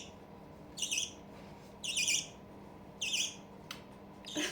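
Young budgerigar (baby budgie) giving short, raspy squawking calls, about one a second.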